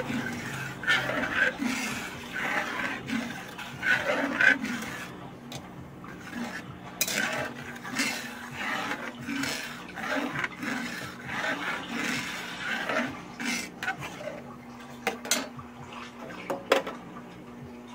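A metal spatula scrapes and clinks against an aluminium wok as it stirs a milk mixture of garlic and ginger, in repeated irregular strokes. A few sharper clinks come near the end, and then the stirring stops.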